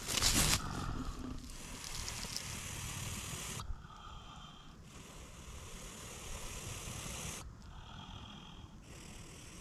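A trapped American badger growling defensively, loudest in a short harsh burst at the very start.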